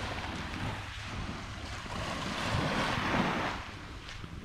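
Small waves washing up onto the beach, with wind rumbling on the microphone; one wash swells up a couple of seconds in and fades away near the end.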